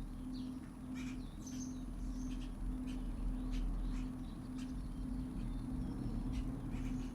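Small birds chirping briefly now and then over a steady low hum, with a tone in the hum pulsing about twice a second.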